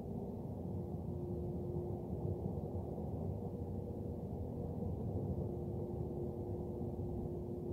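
Steady low buzzing noise with a ringing tone held over it; the ringing weakens in the first few seconds, then comes back and holds, joined by a second, higher ringing tone.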